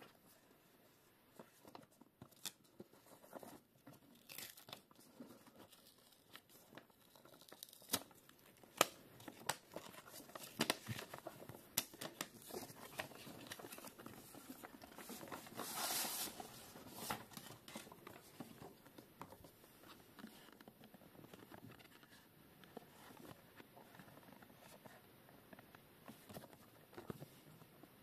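Hands handling the boxed GoPro HERO12 Black, the packaging rustling and crinkling, with scattered light taps and a louder rustle about halfway through.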